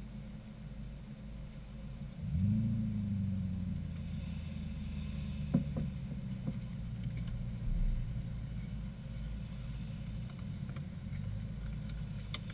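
A car engine starts close by: it catches about two seconds in, revs up briefly, then settles to a steady idle. Another engine idles steadily beneath it, with a few short knocks a few seconds later.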